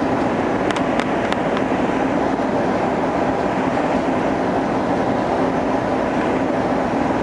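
Steady cabin noise inside an Airbus airliner: an even rumble of engines and airflow, with a few faint ticks about a second in.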